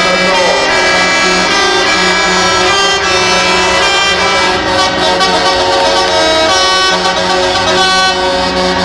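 Several semi-truck air horns sounding together at different pitches, held in long steady blasts.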